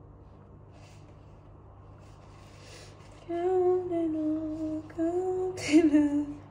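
A woman humming a few drawn-out notes, starting about halfway through, with a short scuffing noise near the end. Before the humming there is only faint room noise.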